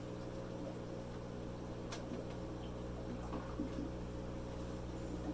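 Steady low hum of electromagnetic diaphragm aquarium air pumps running, with a single sharp click about two seconds in as equipment is handled.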